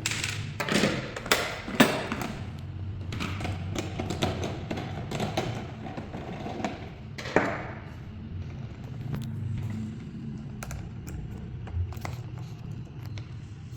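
Irregular clicks and knocks of a Cuckoo rice cooker's casing and parts being handled as it is taken apart, with a few louder knocks in the first two seconds and one about seven seconds in.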